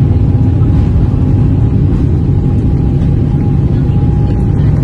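Boeing airliner's turbofan engines and airframe heard from inside the passenger cabin: a loud, steady low rumble with a faint steady whine held throughout.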